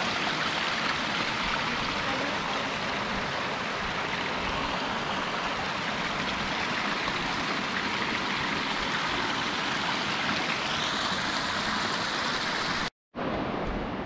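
Fast-flowing river rushing steadily. About a second before the end the sound drops out for an instant and comes back quieter and duller.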